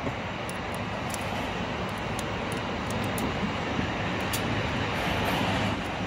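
Steady mechanical background noise, with a few light metallic clicks as the parts of a braiding machine spindle are handled and its rod and spring are slid out.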